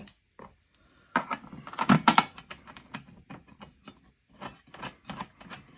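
Small metal hardware clicking and rattling as bolts, washers and nylon lock nuts are handled and fitted through holes in a toolbox. A quick run of clicks comes about one to two seconds in, and a second, lighter run near the end.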